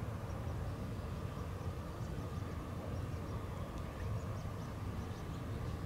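Steady outdoor ambience: a low, even rumble with a few faint, short, high chirps scattered through it.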